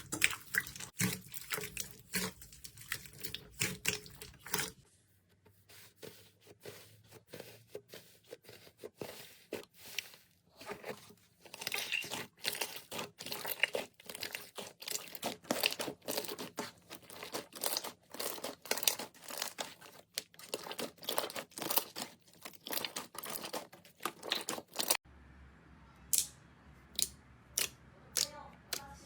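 Slime being squished and played with, giving rapid sharp crackles and pops. The sound changes abruptly about five seconds in and again near the end.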